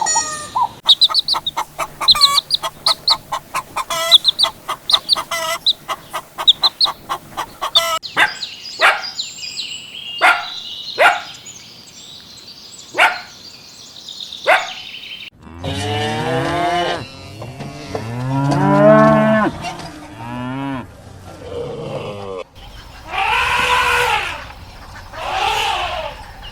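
A run of different animal calls cut one after another: rapid repeated chirps, then sharp separate calls over a high hiss, then cattle mooing in long, low calls from about halfway, and two shorter drawn-out calls of another animal near the end.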